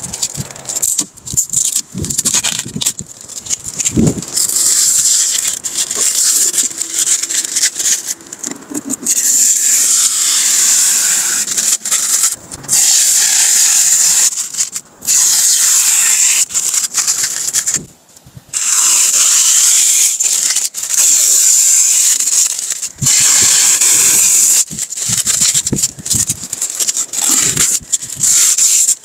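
Clear protective plastic film being peeled and crinkled off a new van's interior trim: long stretches of loud, crackling hiss with sharp clicks, broken by a few short pauses between pulls.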